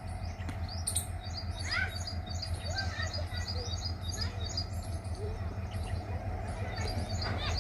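Small birds chirping and twittering over a steady low rumble.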